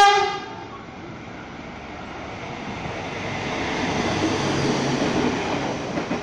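A short horn blast right at the start from the Galunggung track-measuring train, then the train running past close by, its rolling noise building to a peak about four to five seconds in.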